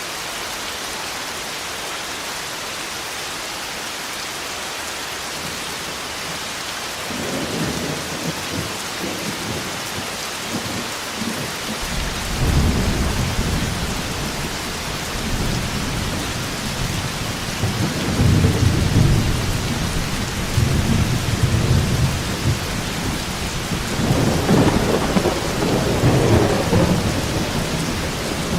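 Steady heavy rain with rolling thunder. The rumble swells in about a quarter of the way in and grows louder, with its strongest peals past the middle and again near the end.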